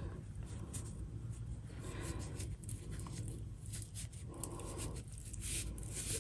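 Faint rustling and scraping of cotton fabric being worked over a pencil with the fingers, turning a sewn doll leg right side out, over a low steady hum.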